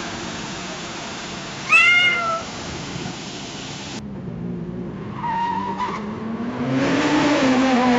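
Car tyres screeching briefly over a steady rushing noise. After a sudden cut comes a second short tyre squeal, then a car engine revving, its pitch rising and then wavering.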